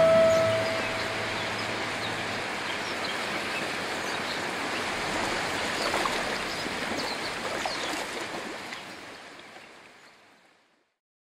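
Sea surf washing over a rocky shore: a steady rush of water that fades away near the end.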